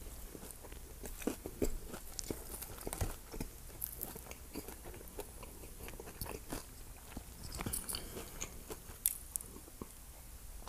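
Close-miked chewing of a burrito coated in crunchy Flamin' Hot Cheetos, with irregular crisp crunches that thin out toward the end.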